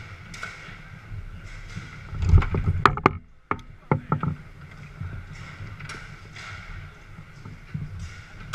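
Garlando foosball table in play: rods sliding and rattling, with a burst of loud knocks and clicks from the ball being struck and the rods hitting the table about two to four seconds in, the first knock a heavy thump.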